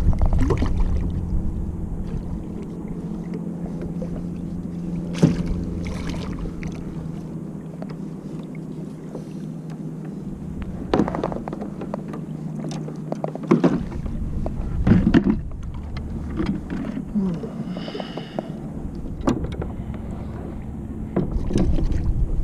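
Fishing kayak on the water: wind rumbling on the microphone over a steady low hum, with a few sharp knocks, likely against the hull, about 5, 11 and 15 seconds in.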